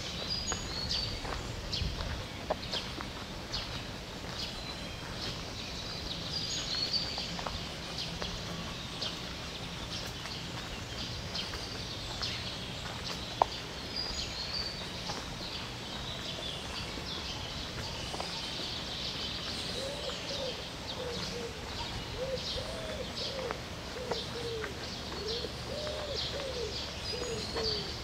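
Songbirds singing in a spring morning chorus: many overlapping short, high phrases. In the second half, a low cooing call of a dove repeats over and over for several seconds.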